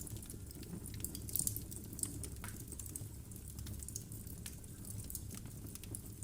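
Wood fire of burning logs in a fireplace crackling: irregular sharp pops and snaps over a low steady rumble of the flames, with a small cluster of louder pops about a second and a half in.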